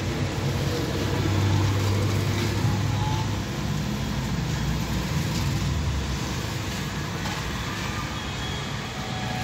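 Steady motor-vehicle noise with a low engine hum that swells a second or so in and dies away about six seconds in.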